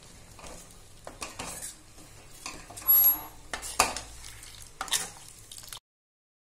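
Steel ladle stirring just-added rock salt into simmering sambar in a stainless steel kadai, with irregular clinks and scrapes of metal against the pan, the loudest a little under 3 and 4 seconds in. The sound cuts off abruptly near the end.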